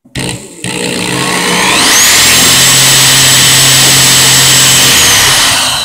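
Electric drill spinning a carburetor jet held in its chuck, to clean the jet. After a short first burst the motor winds up with a rising whine, runs steadily at full speed, then winds down near the end.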